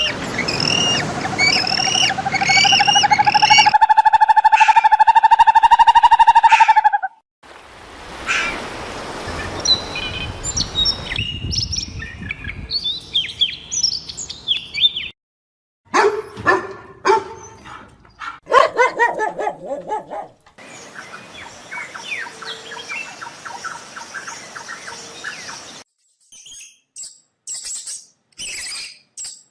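A string of separate animal call clips cut one after another, mostly high chirping and calling like birds. The first seven seconds hold one long steady call with repeated short chirps above it, and the later clips are bursts of short chirps and calls.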